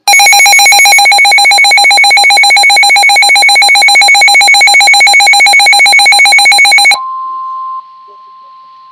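Emergency Alert System attention signal: a harsh, very loud two-tone alarm held steady for about seven seconds, then cut off sharply. A much quieter steady single-pitch tone follows and continues.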